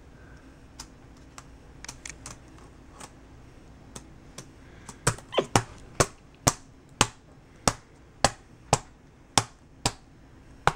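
A capuchin monkey striking the keys of a MacBook Pro laptop keyboard. A few light taps come at first, then from about five seconds in there are sharp, loud single key strikes about twice a second.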